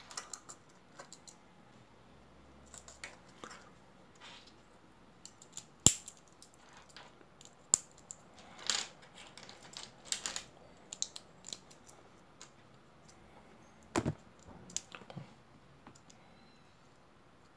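Plastic LEGO bricks clicking as they are handled and pressed together during assembly: irregular, scattered sharp clicks, with a few louder snaps about six and fourteen seconds in.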